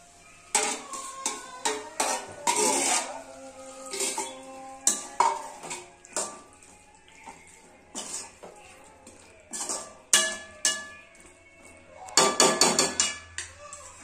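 Metal ladle stirring chicken in a wide aluminium pan. It scrapes and clanks against the pan at irregular moments, with a quick run of clanks about twelve seconds in.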